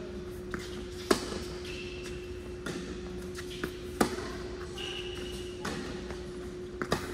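Tennis rally on an indoor hard court: sharp pops of racquets striking the ball and ball bounces, the loudest about a second in, another about four seconds in and a quick pair near the end. A couple of short high squeaks of sneakers on the court sound between the hits, over a steady hum.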